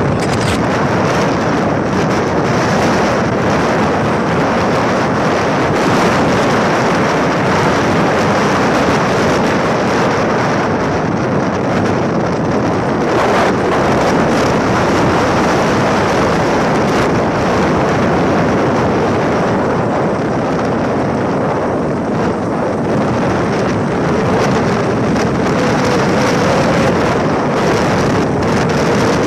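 Steady wind rushing over the microphone, mixed with the running noise of the moving vehicle the camera rides in.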